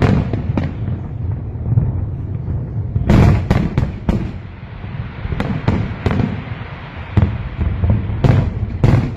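Aerial fireworks bursting in quick succession: a string of sharp bangs, bunched about three seconds in and again near the end, over a continuous low rumble.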